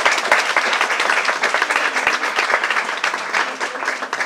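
An audience applauding, a dense patter of many hands clapping that tapers off slightly near the end.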